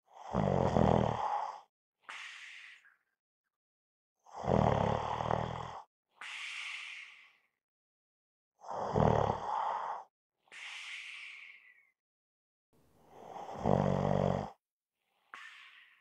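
A person snoring: four loud, low buzzing snores about every four seconds, each followed by a softer, breathy sound.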